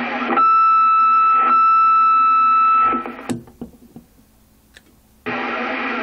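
CB radio speaker receiving a transmission: a burst of static, then a loud steady beep tone for about two and a half seconds with a short break in the middle, ending in clicks. Near the end the radio's static hiss opens up again.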